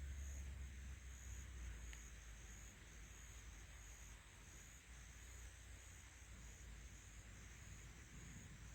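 Faint insect chorus: a high chirp pulsing a little under twice a second, over a low rumble that eases off about three seconds in.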